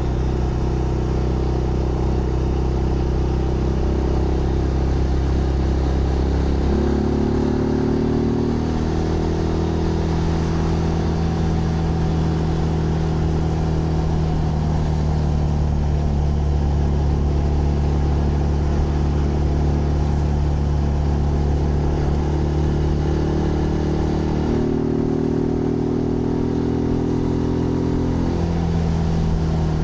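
Zontes GK 125 single-cylinder 125 cc motorcycle engine running under way, a steady engine note that steps to a new pitch about a quarter of the way in and again twice near the end.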